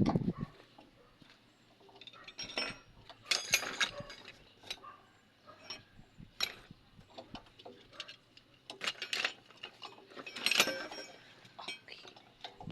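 Irregular metallic clinks, clicks and scrapes of hand tools and pipe fittings being handled during work on a leaking water pump, with louder clusters a few times.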